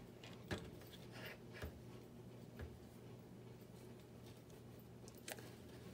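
A handful of faint clicks and taps from small plastic model-kit parts being handled as a wheel is fitted onto its axle, over a low steady hum.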